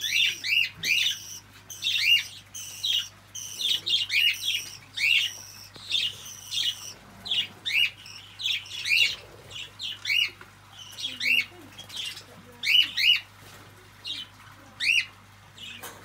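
Small pet birds in an aviary calling: a run of short, high calls that rise and fall in pitch, one or two a second. The calls space out in the last few seconds and stop just before the end.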